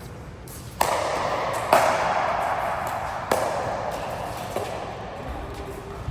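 Three sharp hits, about a second and then a second and a half apart, each followed by a hissing noise that fades away.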